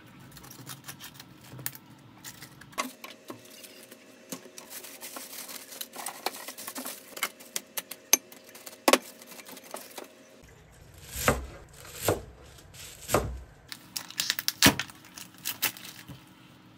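Crisp cabbage leaves being torn off a head of cabbage and a plastic bag crinkling, with scattered small clicks. Then three heavy, dull knocks about a second apart as a cleaver is jabbed through the plastic covering a glass bowl of cabbage leaves to poke holes, followed by light clicks of knife and board handling.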